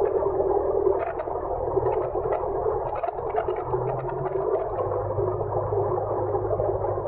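A single-engine Cessna's piston engine and propeller run at low taxi power, heard from inside the cabin as a steady drone. The low engine note drops slightly about four to five seconds in, and light rattling ticks sound throughout.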